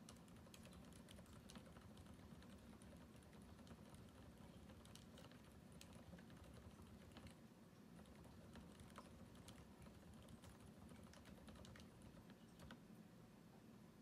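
Faint, continuous typing on a custom mechanical keyboard fitted with Cherry MX Silent Red switches on 65 g springs, in a TeleV2 D796 aluminum case with an aluminum plate: quick, dampened keystrokes without the sharp click of ordinary switches.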